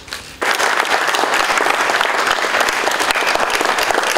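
Audience applauding. The clapping starts suddenly about half a second in and then holds steady.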